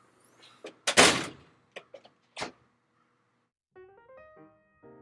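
A storm door slamming shut about a second in, followed by a few sharp clicks. Near the end a short jingle of keyboard notes starts.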